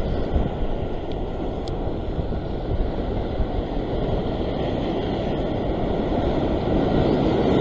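Surf breaking and washing over a rock ledge, mixed with strong wind buffeting the microphone: a steady rushing noise.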